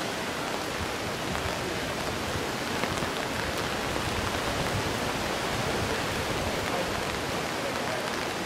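Steady rain falling on wet cobblestones, an even hiss of drops that holds level throughout.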